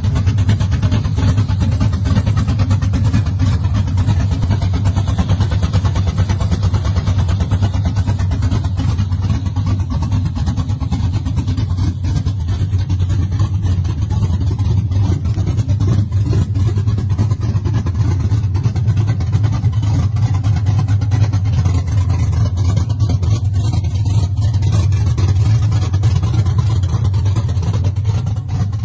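Custom Chevrolet C10 pickup's engine running steadily near idle, a loud, even low exhaust note with a rapid pulse.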